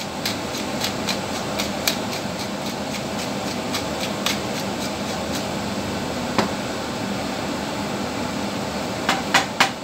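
Steady mechanical hum of a ship's galley ventilation, with scattered sharp clicks of a utensil against a cooking pot and a quick run of several clicks near the end.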